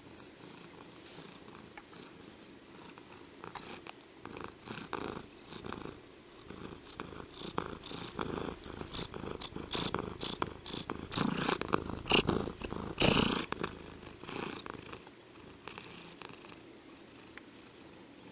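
Domestic cat purring steadily, with a run of irregular rustling and scratching noises that builds to its loudest about 11 to 13 seconds in, then dies away.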